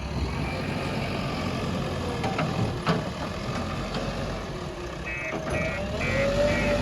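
Diesel engine of a JCB 3DX backhoe loader running, with a knock about three seconds in. From about five seconds in, its reversing alarm beeps about twice a second as the machine backs up.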